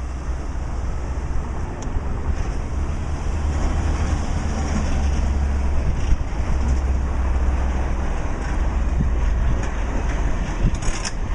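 Vintage electric tram rolling slowly over the rails with a steady low rumble, passing close by, with a few sharp clicks near the end.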